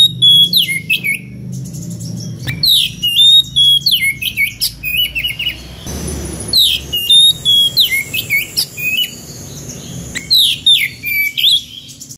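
Oriental magpie-robin (kacer) singing its loud full song, a challenge song calling out a rival. It comes in four phrases of sliding whistles and quick trills, a few seconds apart, over a low steady hum.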